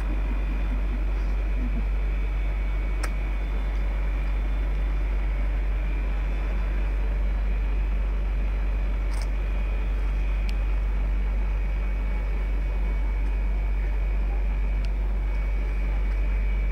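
Steady low hum with a thin high whine, unchanging in level throughout, with a few faint clicks.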